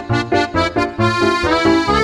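Background music: an instrumental track with quick, repeated short notes over a bouncing bass line, moving into longer held notes about halfway through.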